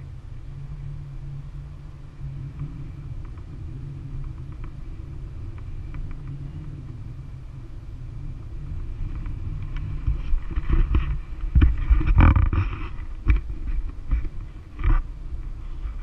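Wind rushing over the microphone of an action camera flying with a tandem paraglider: a steady low rumble that turns into louder, uneven gusts about ten seconds in.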